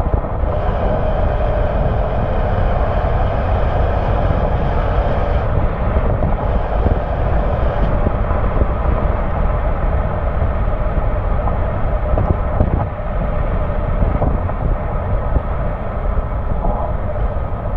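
2003 Porsche Boxster S's 3.2-litre flat-six exhaust droning steadily at highway cruise, picked up close to the rear exhaust outlet, with road and wind rush mixed in.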